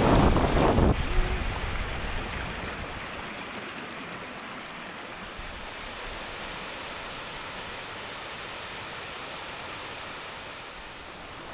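A wide waterfall, 25 to 35 feet tall, rushing as a steady wash of falling water. Wind buffets the microphone with a low rumble for about the first second.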